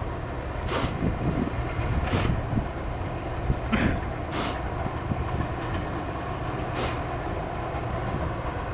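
Union Pacific train rolling past: a steady low rumble of wheels on rails, with about five short, sharp noises from the running gear a second or two apart.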